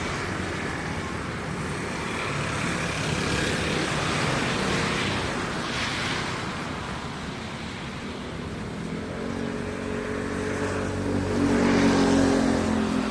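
Road traffic noise, with a vehicle engine hum that grows louder over the last few seconds as it passes close by.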